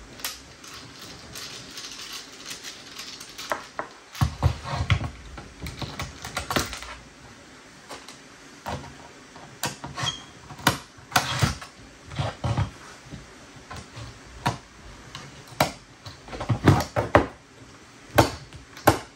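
Bit screwdriver working screws out of a metal hard-drive enclosure: irregular sharp clicks and short scrapes of metal on metal. Some of the screws are stripped.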